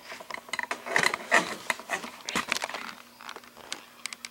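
A run of irregular clicks, taps and light rattles: handling noise, with no steady machine or tone among them.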